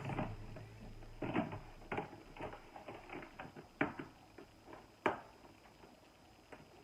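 Hard plastic parts of a stackable storage drawer unit being handled and fitted together, giving irregular sharp clicks and knocks with lighter ticking between them.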